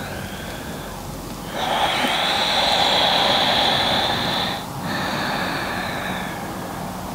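A woman's slow, deep breathing close to the microphone: a quieter breath, then a long, loud breath starting about a second and a half in, and after a short break another one that fades out.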